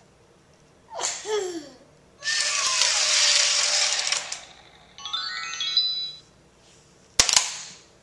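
Electronic sound effects from a small remote-control toy: a falling squeal, about two seconds of loud hiss, then a run of stepped descending beeps. A sharp double knock comes near the end.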